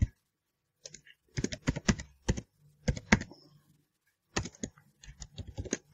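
Keystrokes on a computer keyboard, typing in several short runs with brief pauses between them, after a single click at the start.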